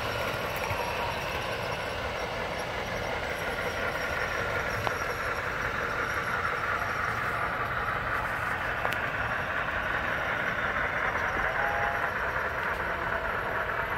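HO-scale model diesel locomotive running along the layout's track: a steady rolling whir that grows louder as it approaches, about ten seconds in.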